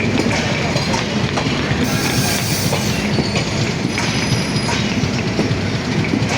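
Banalata Express passenger train rolling into a station: the carriages' wheels run on the rails with clicks over the joints. A high hiss comes about two seconds in, and thin wheel squeals a little later.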